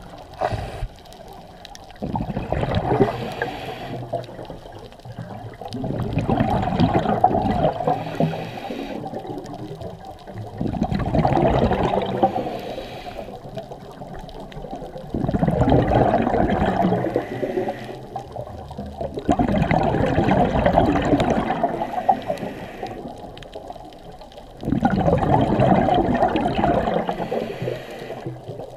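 Scuba diver breathing through a regulator underwater: six rushes of exhaled bubbles, each two to three seconds long, coming about every four to five seconds, with quieter gaps between them for the inhale.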